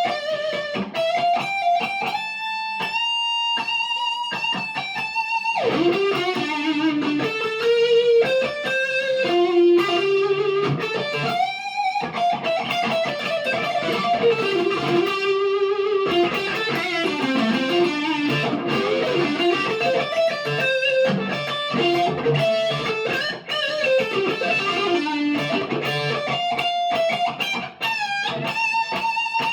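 PRS McCarty 594 Hollowbody II electric guitar played through a Marshall DSL40C amp: a melodic single-note lead line with held, wavering notes and slides between pitches.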